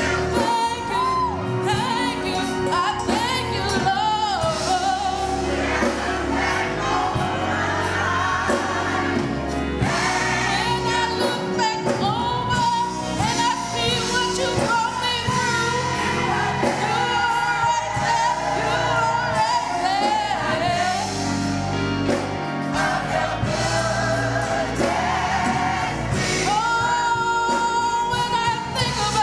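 Gospel choir singing a song with instrumental accompaniment and a moving bass line.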